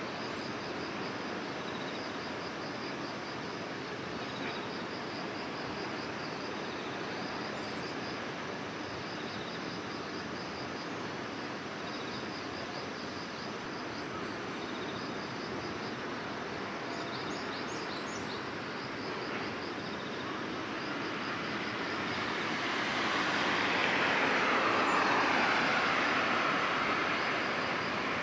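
Steady outdoor background noise with evenly repeating high chirps. Near the end a vehicle passes close by, its sound swelling and then falling in pitch as it goes.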